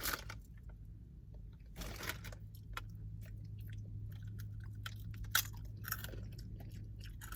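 Crunchy snack being bitten and chewed, a scatter of irregular crisp crunches.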